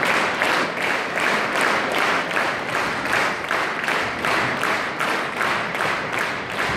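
Audience applauding in unison, a steady rhythmic clapping of about three claps a second.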